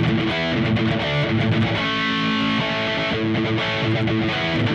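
Electric guitar strumming a D major chord and then an E major chord, the chords struck and left to ring.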